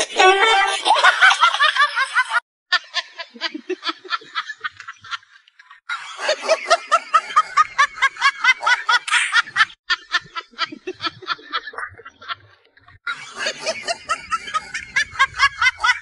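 People laughing in quick, rhythmic ha-ha-ha bursts, in several stretches that cut off and start again abruptly.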